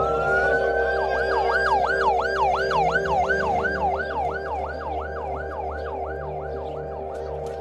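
Ambulance siren: a wail rising in pitch, then switching to a fast yelp of about three cycles a second that slowly fades.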